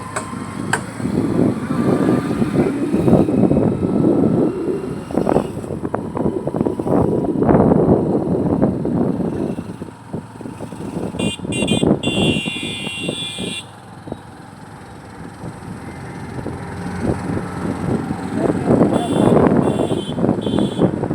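Road traffic noise, with vehicles rumbling past and a horn sounding for about two seconds midway, then a few short horn toots near the end.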